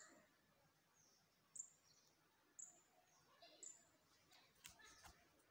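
Faint bird calls: short high chirps that fall slightly in pitch, about once a second, with softer lower calls between them. A few soft clicks near the end.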